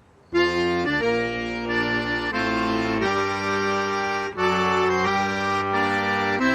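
Accordion playing a tune in sustained chords that change every second or so, starting about a third of a second in after a brief quiet gap.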